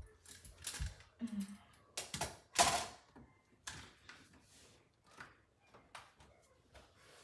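Irregular clicks, knocks and rattles of plastic HO scale train track and model pieces being handled and pulled apart, with a low thump near the start and a louder scraping rustle about two and a half seconds in as someone shifts on the wooden table.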